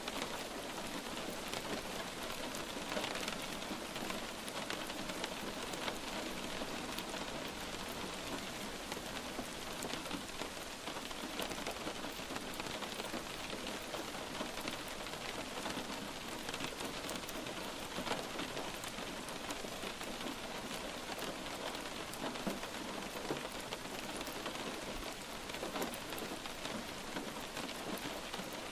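Steady light rain falling, an even hiss of rain with many separate drops ticking through it.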